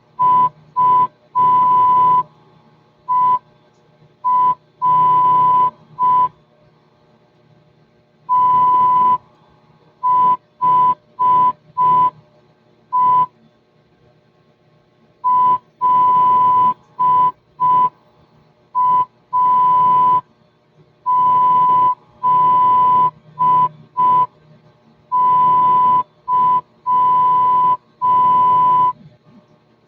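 Morse code sent as a steady high beep keyed on and off in short and long elements, dots and dashes, in groups with pauses of about two seconds between them.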